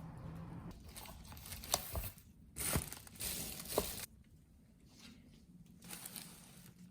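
Crinkling and tearing of packaging being handled, in two louder bursts about two and a half to four seconds in, with a few sharp clicks before them.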